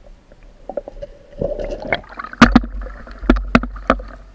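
Water splashing and gurgling around the camera as it is brought up out of a stream, with several sharp, loud splashes in the second half.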